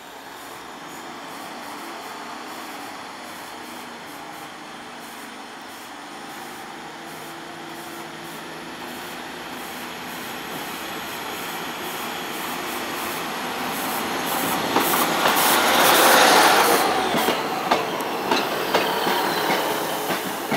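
Northern diesel multiple unit approaching along the platform and passing close by. Its engine and running noise grow steadily louder and peak about three-quarters of the way through, followed by a quick run of wheel clicks over rail joints as the coaches go past.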